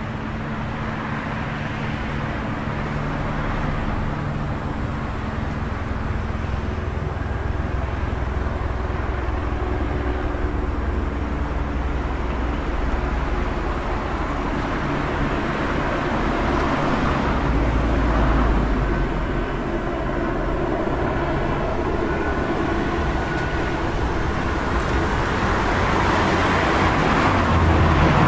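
City road traffic: a steady wash of engine and tyre noise from passing cars. It swells as vehicles go by, loudest near the end.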